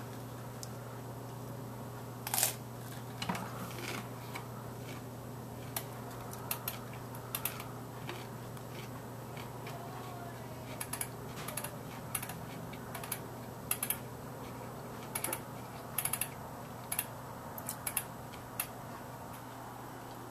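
Scattered small clicks and taps: a plastic fork against a clear plastic salad container at first, then a computer mouse being clicked, over a steady low hum.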